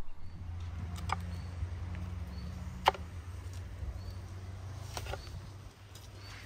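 Metal tongs clicking and tapping at a charcoal grill grate while charred tomatoes are lifted off: a few sharp clicks, two of them close together, over a steady low rumble, with faint bird chirps.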